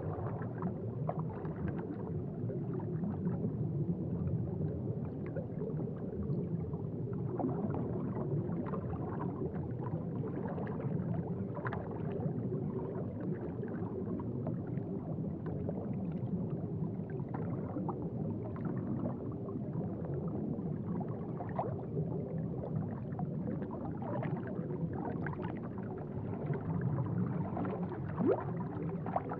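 Aquarium water bubbling and gurgling: a steady low gurgle with many small bubble pops scattered through it, and one slightly louder pop near the end.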